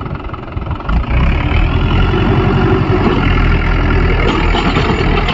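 Mahindra 415 DI tractor's diesel engine running, growing sharply louder about a second in and then running steadily.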